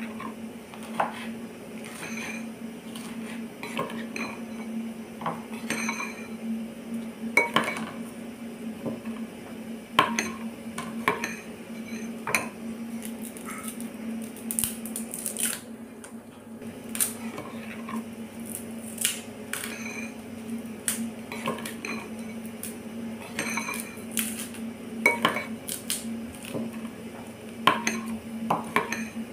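Kitchen prep sounds: a knife knocking and scraping on a wooden cutting board and utensils clinking, as irregular sharp clicks every second or so, over a steady low hum.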